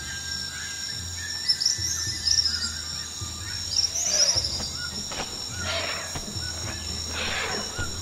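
Small songbirds chirping at a backyard feeder: two bursts of high, quick trills in the first half, then a string of short, sharp chirps.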